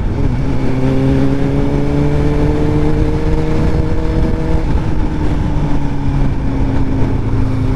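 Suzuki GSX-S750's inline-four engine pulling under acceleration through its long-canister exhaust, its note rising steadily for about four seconds. About four and a half seconds in, the rising note breaks off and the engine settles into a steady, slightly lower drone, with a constant low rush of wind under it.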